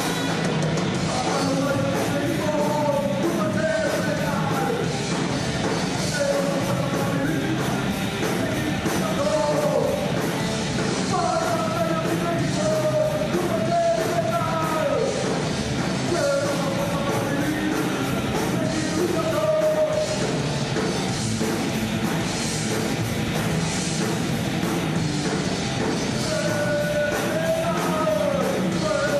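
Heavy metal band playing live: electric guitar, bass and a drum kit at full volume, with a wavering, bending melody line over them.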